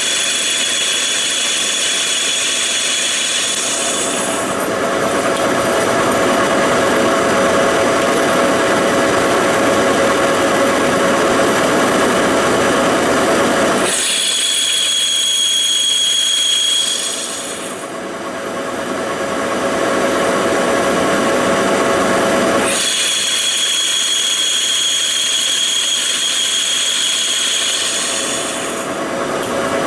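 Monarch engine lathe and its phase converter running with a steady hum while a cutting tool turns down a cast iron drive pulley hub. A high-pitched ringing squeal from the cut comes and goes three times: at the start, about halfway, and again over the last several seconds.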